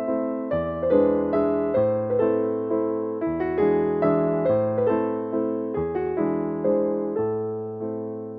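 Background piano music: gentle chords changing about every second and a half, easing off near the end.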